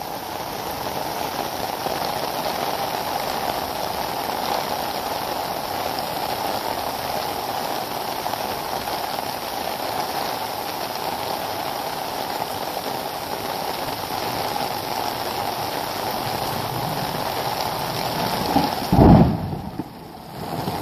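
Extremely heavy rain pouring steadily onto a flooded lawn and standing water, a dense even hiss. Near the end a single brief loud low thump, followed by a short muffled dip.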